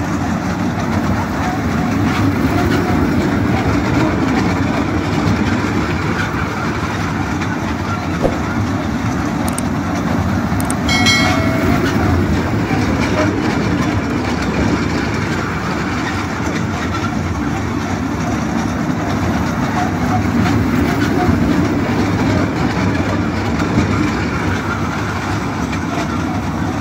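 Children's fairground ride-on train running round its small circular track: a steady rumble of the cars and wheels on the rails, over the chatter of a crowd. A brief high-pitched tone sounds about halfway through.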